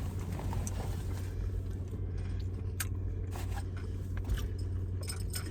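Car engine idling, a steady low hum heard from inside the cabin, with a few faint clicks over it.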